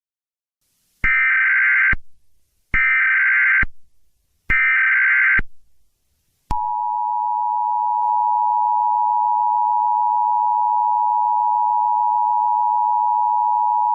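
Emergency Alert System tones: three short bursts of SAME header data, each about a second long, warbling around 1.5 to 2 kHz, followed about six and a half seconds in by the steady two-tone EAS attention signal, which holds on.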